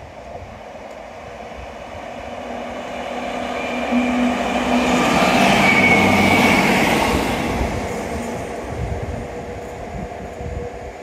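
A train passing close by on the railway line: it grows louder from about two seconds in, peaks around six seconds, then fades as it goes away.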